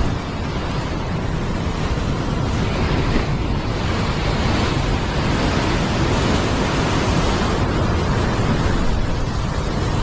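Heavy surf breaking and washing over sandstone rocks, a continuous rushing wash that surges louder mid-way, with wind buffeting the microphone.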